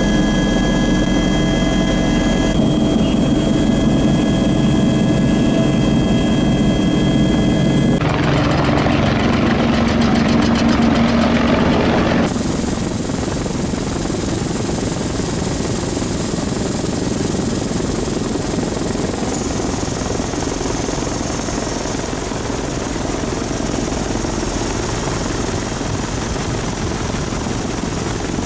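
Helicopter turbine and rotor noise heard from on board: a loud, steady drone with a high whine above it. The sound changes abruptly several times.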